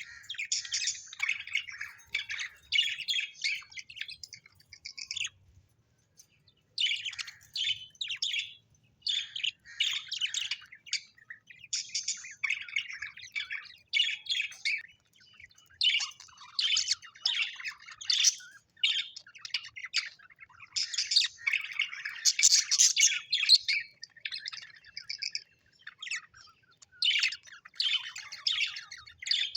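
Pet parrots chirping and chattering in quick runs of high, warbling notes, broken by short pauses about five seconds in and again near the end.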